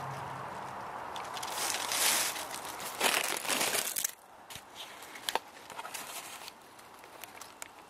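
Close rustling and crinkling of clothing and brush against the microphone, loudest in the first four seconds. After that it turns quieter, with a few scattered light clicks and snaps.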